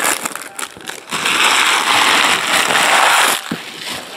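Foil trading-card pack wrapper being torn open and crumpled in the hands: a few light crackles, then about two seconds of loud, dense crinkling that stops abruptly.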